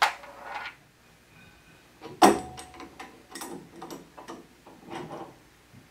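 Small metal clicks and clinks of handling a brass pipe plug and tools while threading the plug into a brass fitting. The loudest is a sharp click about two seconds in with a brief ring, followed by several lighter clicks.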